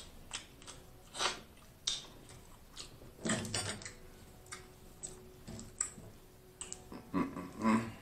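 Snow crab shell snapping and crackling as it is picked apart by hand, heard close up as a dozen or so short, irregular clicks.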